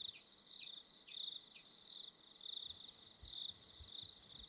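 Night insects chirping in a steady, repeating chorus. A second caller gives short falling chirps about half a second in and again near the end.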